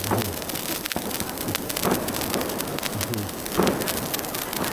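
Fireworks crackling densely, like heavy rain, with a few low thuds among the crackle.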